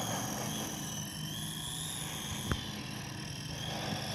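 Feilun FX070C scale RC helicopter's electric motor and rotor whining overhead, its pitch wavering up and down as the throttle changes. A single sharp click comes about two and a half seconds in.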